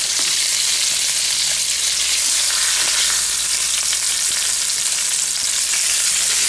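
Hot oil sizzling steadily in a frying pan around flour-coated hamburger patties, a dense hiss without break.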